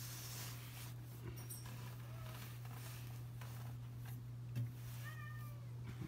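A domestic cat gives a short meow about five seconds in, over a steady low hum in the room.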